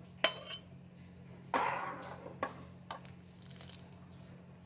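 Metal spoon clinking and scraping against a pan of boiling milk and vermicelli as it is stirred: a sharp clink just after the start, a louder, longer stroke about a second and a half in, then a few lighter clicks, over a steady low hum.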